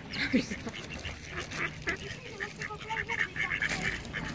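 Ducks calling, a rapid series of short high calls with a few lower calls mixed in.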